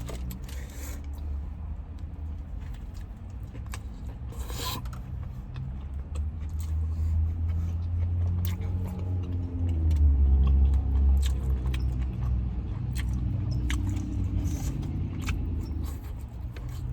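Close-miked chewing and biting of a McDonald's crispy chicken sandwich, with small wet clicks and crackles throughout. A low steady rumble runs underneath and swells about ten seconds in.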